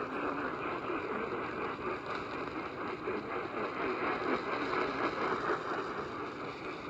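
Steady hiss of radio static from a receiver that has lost the alert broadcast, with no speech.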